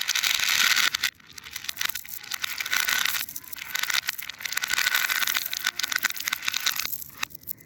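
Fidget toy being handled, making a crackling, crinkling noise with scattered clicks that swells and fades several times before dying away near the end.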